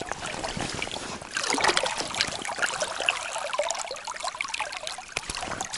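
River water splashing and trickling as a small hooked grayling is pulled in at the surface and taken in hand. The splashing is irregular and thick with small crackles, busiest a second or two in.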